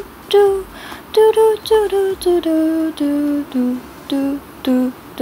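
A high voice singing a carefree "la dee da dee da" tune, about a dozen short notes that step down and back up in pitch.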